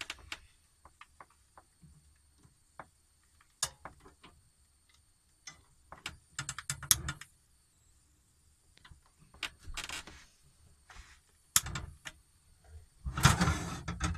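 Scattered clicks and knocks of a propane gas hob being lit, with short rushing bursts as the burner catches, then a louder clatter near the end as a frying pan is moved on the metal burner grate.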